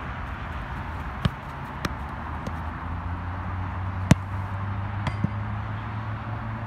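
A soccer ball kicked hard: one sharp thud about four seconds in, with a few fainter knocks before and after it, over steady outdoor background noise.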